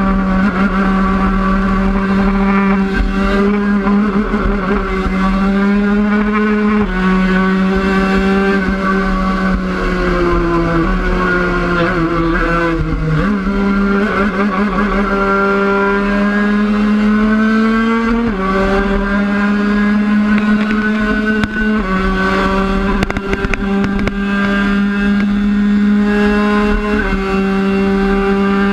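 Onboard sound of a 50cc race motorcycle's engine running at high revs. The pitch climbs slowly and drops sharply several times as the rider changes gear, and sags then jumps back up around the middle through a corner.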